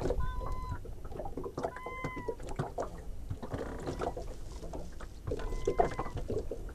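A seagull calling over and over: three drawn-out calls on one steady pitch, a couple of seconds apart, with small clicks and knocks in between.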